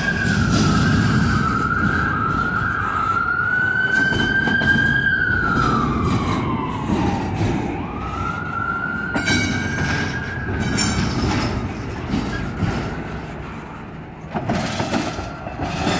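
Double-stack intermodal freight cars rolling past close by, wheels rumbling on the rails, with a high wavering wheel squeal that holds, sags lower midway, then climbs again. The rumble eases off near the end.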